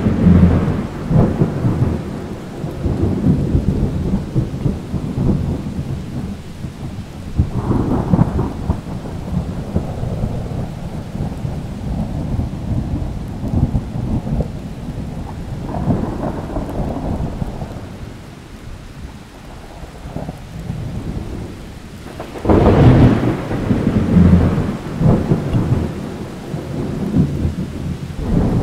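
Thunder rolling and rumbling over steady rain, swelling and fading in several waves. A loud new thunderclap breaks in about three-quarters of the way through.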